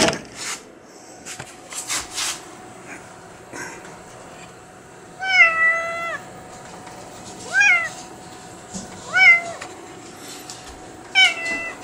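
A stray tabby cat meowing four times, about two seconds apart, the first call the longest.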